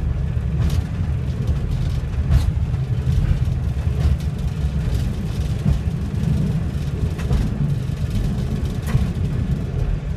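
Class 141 Pacer railbus under way, heard from inside the cab: a steady low rumble of its Cummins diesel engine and running gear, with a few light clicks at uneven intervals.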